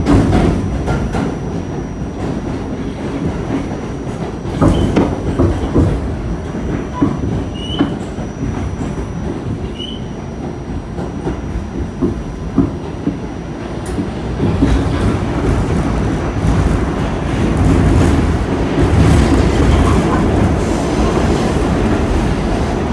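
R46 subway car running between stations: a steady rumble with wheels clacking over rail joints, a few brief wheel squeals and a thin high whine. The running gets louder from about two-thirds of the way in.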